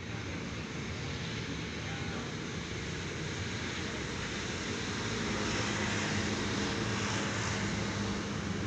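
Night street ambience: a steady rumble and hiss of distant traffic, growing a little louder past the middle.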